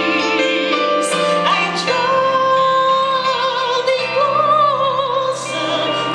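A woman singing a slow gospel hymn into a microphone over instrumental accompaniment, holding long notes with vibrato.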